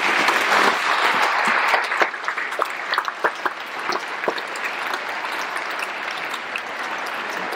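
A large audience applauding: many hands clapping together, loudest for the first couple of seconds and then continuing a little softer.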